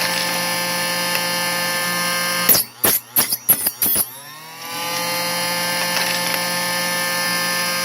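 Small electric chop saw (Harbor Freight cut-off saw) running with a steady high motor whine; about two and a half seconds in it cuts off and a quick run of sharp metallic clicks and taps follows, then the motor spins up again and runs on. The saw is being used to trim brass rifle cases.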